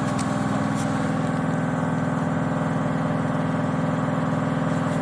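Steady low drone of a running motor, like an idling engine, holding an even level throughout, with a few faint light ticks.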